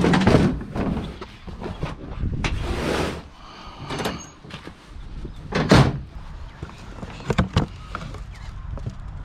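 Salvaged items being handled and loaded at a vehicle: a series of knocks and thumps with a door or sliding-door sound. There is a short scraping rush about 3 s in, the heaviest thump at about 6 s, and lighter clicks soon after.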